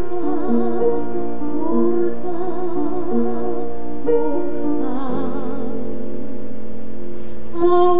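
A woman singing a Finnish gospel song in long held notes with vibrato, over a steady keyboard accompaniment.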